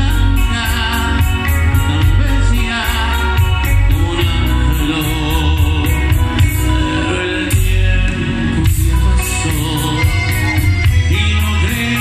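Live grupero band playing through a concert PA, a man singing lead over bass, drums and percussion with a steady beat.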